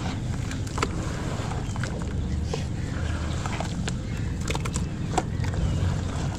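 Hands squeezing and swishing wet sand in a plastic basin of water: scattered small splashes and squelches over a steady low rumble.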